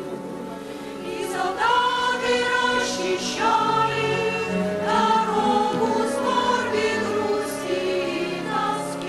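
Large choir of men and women singing held notes, swelling in loudness about a second and a half in.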